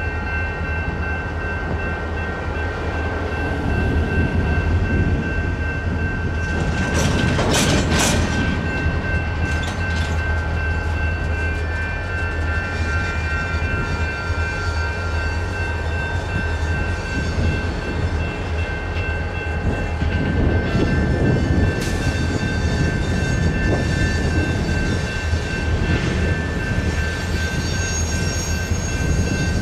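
Freight train boxcars rolling slowly through a grade crossing with a steady low rumble, the wheels clacking sharply over the crossing in clusters, about seven to eight seconds in and again around twenty-two seconds. The crossing's Safetran Type 2 electronic bell rings steadily throughout.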